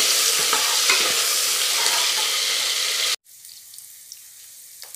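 Sliced onions, curry leaves and green chillies sizzling in hot oil in an aluminium pressure cooker, stirred with a steel spoon that scrapes and clicks against the pot. The sizzle cuts off abruptly about three seconds in, leaving a faint hiss with a few light ticks.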